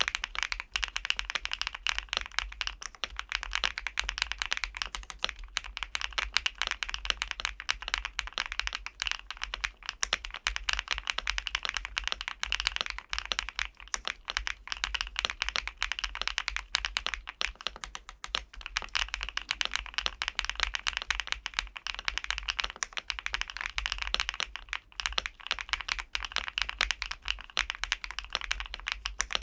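Fast, continuous typing on a LUMINKEY75 V2, a gasket-mounted aluminium 75% mechanical keyboard with foam-damped PBT keycaps: a dense run of quick keystroke clicks.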